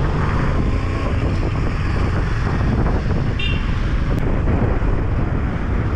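Wind buffeting the microphone of a moving motorcycle over steady engine and road rumble, with a brief high chirp about halfway through.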